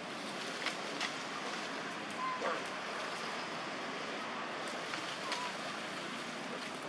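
Steady hiss of forest background noise, with a few short chirps and sharp clicks scattered through it.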